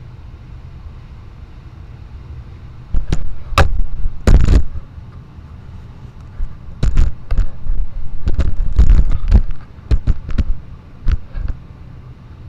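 Loud, sharp metal knocks and bangs in irregular clusters, starting about three seconds in, from work on an ATV's rear drive.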